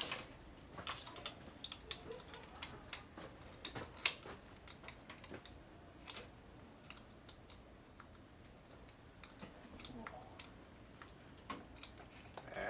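Scattered light clicks and taps from hands and small tools working the cable fittings at the motorcycle's carburetor, thicker in the first few seconds and sparser after.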